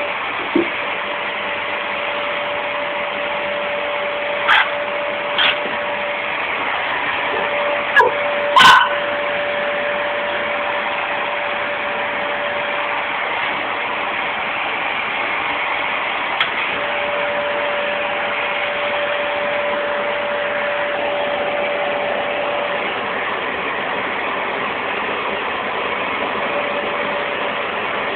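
A vacuum cleaner runs steadily with a constant motor whine. An Akita barks and yips about five times in short, sharp outbursts during the first nine seconds, then falls quiet while the vacuum keeps running.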